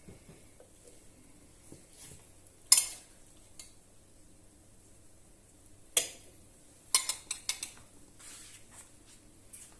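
Serving spoon clinking and scraping against plates and dishes as vegetables are served: a sharp clink about three seconds in, another about six seconds in, then a quick run of several clinks.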